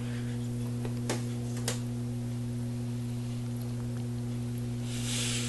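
Steady electrical mains hum from running aquarium equipment, with two short clicks about a second in and a brief hiss near the end.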